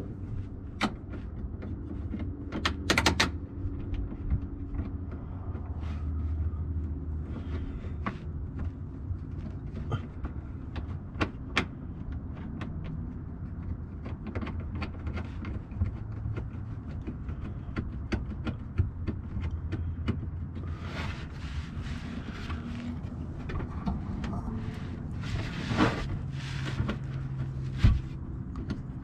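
Hands working on car trim and brake-light mounting parts: scattered sharp clicks and knocks of plastic clips and hardware, with a couple of short scraping rustles near the end, over a steady low rumble.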